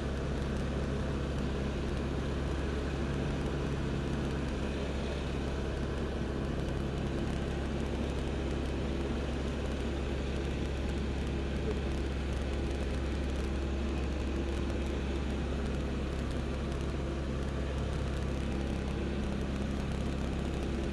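L-13 Vivat motor glider's piston engine and propeller running steadily, a constant low drone heard from inside the cockpit.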